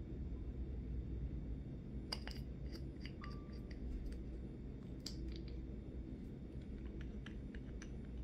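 Small sharp clicks and taps of glass nail polish bottles and their caps being handled and set down on a table, in a cluster about two seconds in, another around five seconds, and a few near the end, over a low steady hum.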